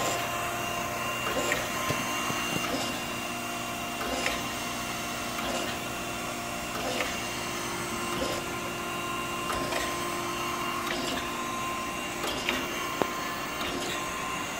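Okamoto 124N surface grinder's hydraulic table reciprocating on a very short stroke, reversing with a short click about every 1.3 seconds over the steady hum of the machine's pump and motors.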